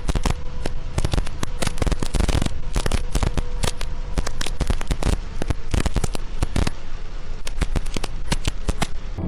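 Heavy rain hitting the windshield and roof of a vehicle driving through a downpour, heard from inside the cab: a dense, irregular crackle of hard drop impacts.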